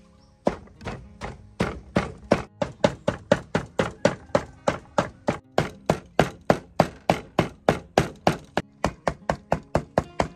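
Cleaver chopping raw pork on a wooden chopping board. Steady rapid strikes, about four a second, start about half a second in as the meat is minced.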